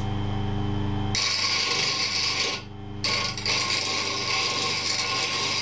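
Bench grinder motor running with a steady hum; about a second in, a steel wood chisel is pressed to the wheel and a grinding hiss starts, stops briefly near the middle, then resumes. The chisel's edge is being ground to an angle to make a skew chisel.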